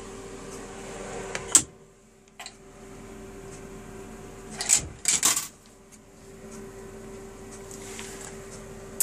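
Milk vending machine humming steadily, with sharp clicks and knocks from coins going into the slot and a glass bottle and the dispenser door being handled. The loudest knock comes about a second and a half in, and a cluster of knocks about five seconds in.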